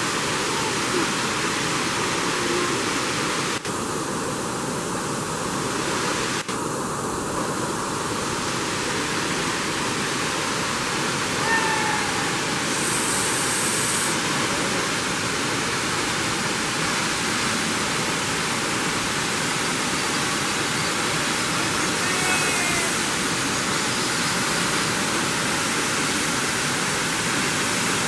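Ozarde waterfall's monsoon falls: a steady, loud rush of water, unbroken apart from two momentary dips a few seconds in.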